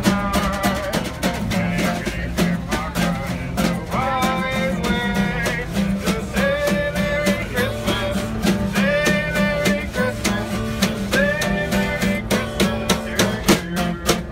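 Live band music: an acoustic guitar strummed and a snare drum hit with sticks in a steady beat, with held melody notes in short phrases over them.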